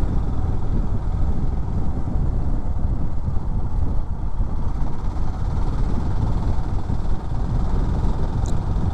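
Wind buffeting the microphone of a moving motorcycle, with engine and road noise underneath as a steady low rumble.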